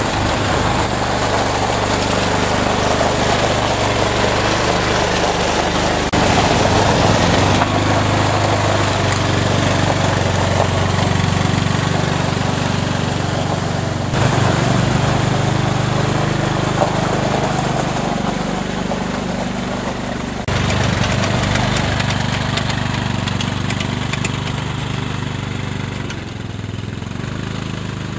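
ATV (quad bike) engine running at low speed, with several abrupt jumps in level and pitch every few seconds.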